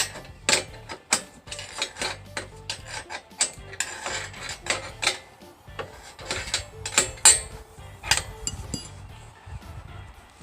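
Irregular metal clicks, clinks and knocks from hand tools working on the steel sawmill track sections while they are being leveled, over quiet background music.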